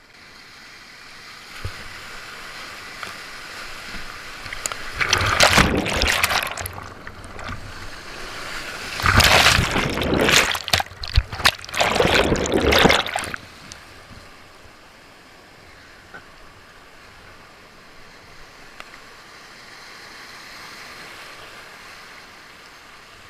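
Whitewater rushing as a kayak runs a rapid, with water splashing hard over the boat and camera in two loud surges, the first about five seconds in and the second, longest and loudest, about nine to thirteen seconds in. Steadier river rushing before and after.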